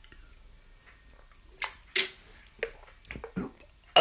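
Drinking from a can: a few short swallowing and mouth sounds spaced out over a couple of seconds, with quiet room tone between them.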